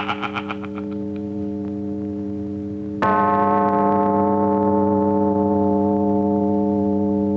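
Opening-title film score: a pulsing tremolo electric guitar dies away over a held low chord, then about three seconds in a loud struck gong-like chord rings out and slowly fades.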